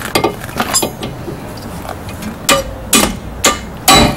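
Hammer striking a hand impact screwdriver seated in a stuck Phillips-head rotor screw: a few light metal clicks, then four sharp metallic hits about half a second apart in the second half, breaking the screw loose.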